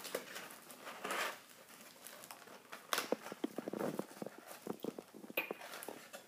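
Cardboard Pokémon booster box being pulled open by hand: the lid flap scraping and tearing, with a rasp about a second in and a run of crackling and clicking from about three to four seconds in.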